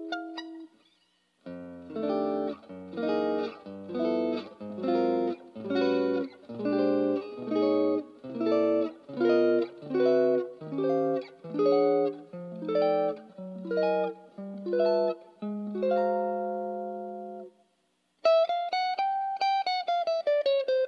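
Tokai SD-65s electric guitar played: a series of short, evenly spaced chords, then a held chord. After a brief break, a sustained note is pulled slightly up and then dived smoothly down in pitch with the Shift 2001 tremolo arm.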